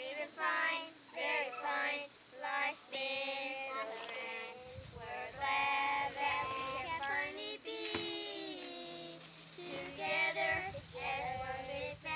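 A small group of children and a woman singing a song together, with held, bending notes.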